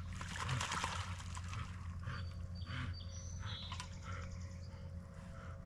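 Water sloshing and splashing softly as a dog swims in a lake, under a steady low rumble, with a few faint high chirps from birds around the middle.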